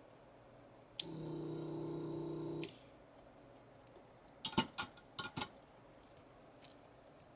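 Desoldering gun's vacuum pump switched on with a click and running as a steady buzzing hum for under two seconds, then cutting off. A few seconds later come several quick light metallic clicks and taps.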